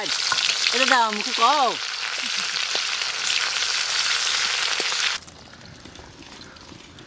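Sliced onions sizzling as they fry in hot mustard oil with cumin and whole spices in a karahi, being turned with a metal spatula. The sizzle cuts off suddenly about five seconds in, leaving only a much quieter background.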